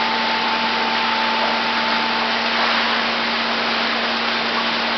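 Steady machine noise: an even whooshing hiss with a constant hum under it, unchanging throughout.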